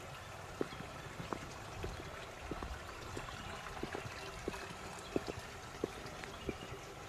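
Footsteps on stone paving, about one and a half steps a second, over a steady rush of running water.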